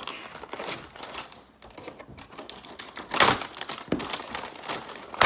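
Plastic wrap crinkling and rustling as it is pulled off packaging, with small clicks of handling; the loudest rustle comes about three seconds in.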